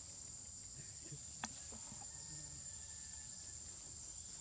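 Insects droning steadily on one high pitch, with a single sharp click about a second and a half in.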